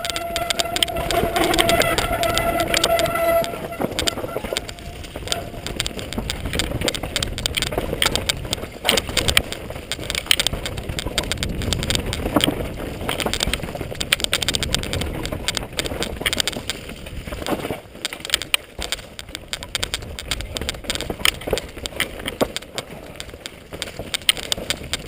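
Mountain bike descending a rough dirt and rock trail: a continual clatter and rattle of the bike and tyres over the bumpy ground. A steady high squealing tone sounds over it for the first few seconds.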